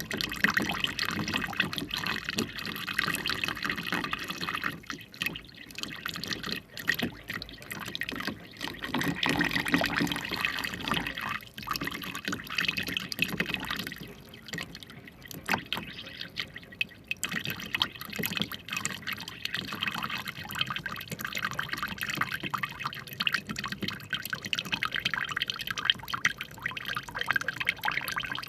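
Liquid sounds: water trickling, dripping and splashing in irregular spells, with short lulls along the way.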